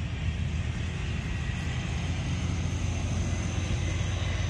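A steady low droning hum from an engine or motor running, even and unbroken.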